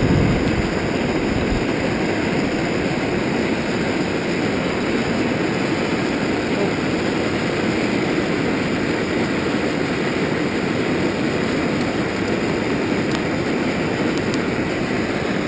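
Metal-melting furnace running with a steady, even rushing noise while gold is melted in a crucible.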